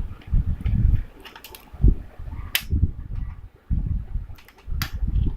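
Laptop parts being handled and pried during disassembly: low knocks and bumps with several sharp plastic clicks, the loudest about two and a half seconds in.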